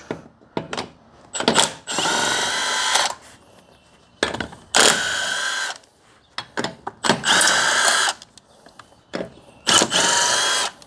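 Milwaukee impact wrench spinning lug nuts off a car's front wheel, in four runs of about a second each with short pauses and clicks between them.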